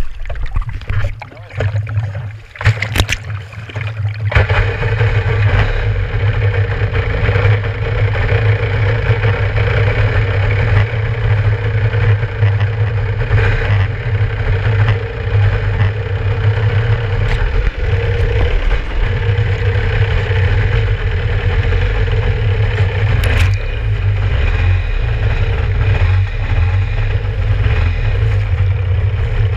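Kawasaki 650SX stand-up jet ski's two-stroke engine catching about four seconds in, after a few irregular knocks, then idling steadily.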